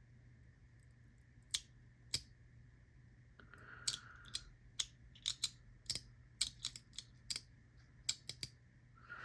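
Sharp metallic clicks from a small metal fidget toy being handled and probed by hand: two single clicks, then an irregular run of them.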